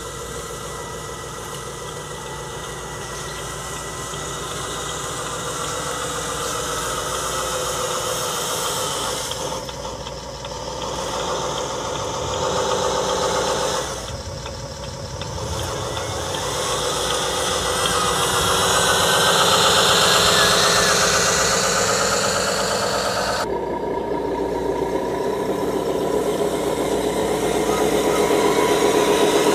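1/10 scale radio-controlled trucks driving, their motors running and rising and falling in pitch with speed. The sound changes abruptly three times.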